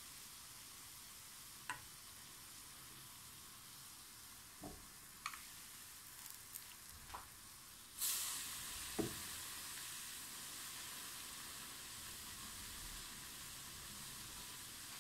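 Hot oil in a frying pan sizzling steadily around a frying rosette fritter, with a few light clicks. About eight seconds in, the sizzling jumps suddenly louder as a batter-coated rosette iron goes into the oil, and it stays louder.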